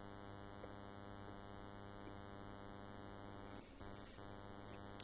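Faint, steady electrical mains hum in the recording: a low buzz with many evenly spaced overtones.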